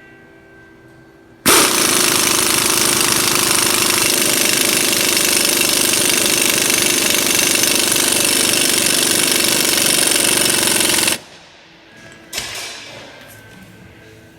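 Impact wrench hammering continuously for about ten seconds as it drives a wheel stud installer, pulling a new wheel stud into the hub, then cutting off suddenly. A brief, quieter clatter follows about a second later.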